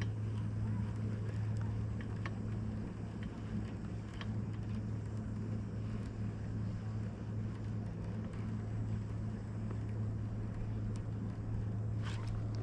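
A motor on a fishing boat running with a steady, even low hum, with a few faint ticks. A short hiss comes near the end.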